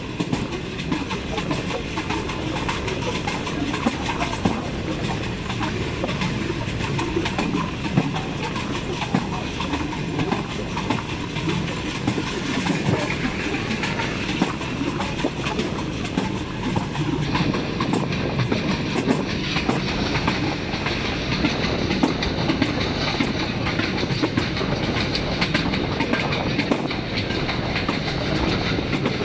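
A passenger train running at speed, heard from an open window of one of its coaches: a steady rumble of wheels on the track, with a constant patter of clicks and clacks over the rail joints.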